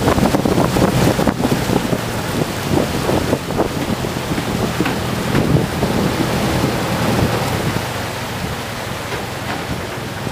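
Longtail boat moving along the river: wind buffeting the microphone over rushing water and the boat's engine running, getting a little quieter near the end.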